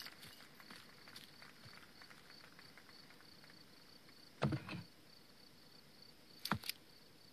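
Night ambience of crickets chirping: a faint, high, evenly pulsing chirp, about four a second. A soft thump comes a little past halfway, and two light clicks come near the end.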